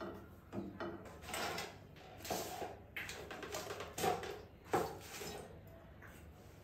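Kitchen utensil noise: a metal spoon or ladle scraping and knocking in a frying pan in irregular strokes, with a few sharper clinks.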